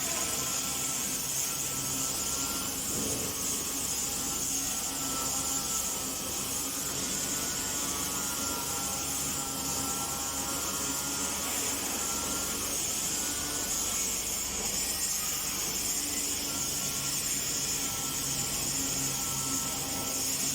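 Grinder fitted with a sanding disc running steadily against a surface: a constant motor whine under a hissing scratch from the abrasive.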